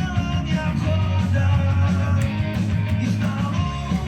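Rock song playing, with guitar and a singing voice.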